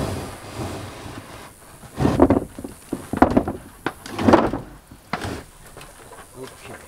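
Corrugated tar-and-fibre roofing panel being slid and pushed into place over wooden rafters: four short scraping bursts, about a second apart.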